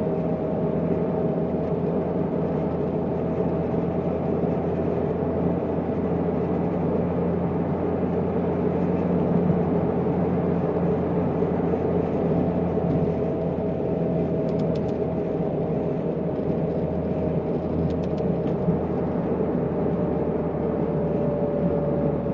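Toyota MR2 (SW20) cruising at a steady speed: constant engine and road noise from its mid-mounted four-cylinder engine and tyres, with one held tone that dips slightly in pitch near the end.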